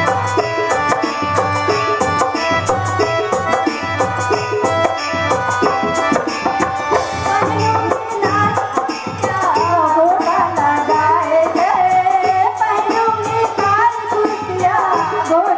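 Rana Tharu folk dance song: a quick, steady drum beat under melody instruments, with a singing voice coming in a little past halfway.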